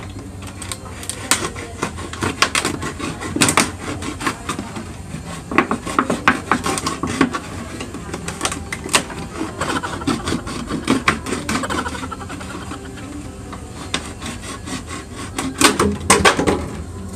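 Kitchen knife sawing through a large thin-walled plastic water jug, the plastic crackling and clicking in quick irregular bursts as it is cut and flexed.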